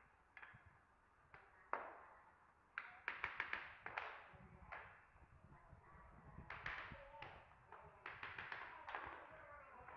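Hammer tapping wooden herringbone floor planks into place: a few single knocks, then quick runs of five or six sharp taps about three seconds in, near the middle and again near the end.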